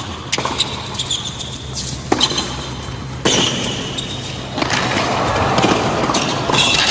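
Tennis rally on a hard court: racquet strikes on the ball every second or so and short squeaks of players' shoes, while crowd noise grows louder in the second half.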